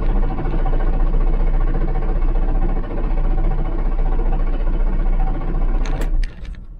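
Starter motor cranking the Unimog U1300L's Mercedes-Benz OM366A inline-six diesel with the stop control held down so it does not fire, turning it over to build oil pressure in the emptied oil filter housing. The cranking cuts off suddenly a little after six seconds in, with a few clicks.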